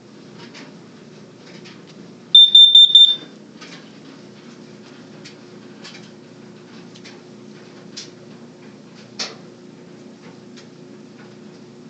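Household smoke alarm sounding one brief, loud burst of high-pitched pulsing beeps, lasting under a second and starting about two seconds in, as it is set off for a test. A single click comes later.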